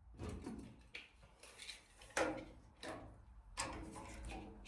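A few faint, separate knocks and clicks: wooden batten and tools being handled against the hull lining.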